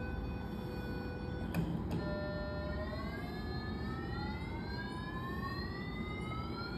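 Phacoemulsification machine's aspiration tone during irrigation and aspiration of lens cortex. A steady tone runs first, then two clicks, then a tone that rises steadily in pitch, the machine's signal that vacuum is building at the aspiration port.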